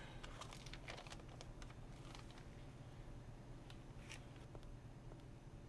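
Faint, scattered light clicks and rustling, as of small things being handled, over a low steady hum of room tone.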